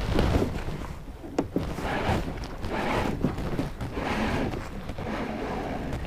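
Handling noise on a fishing kayak: rustling and bumps as gear and the boat are handled, with two sharp clicks about a second and a half in.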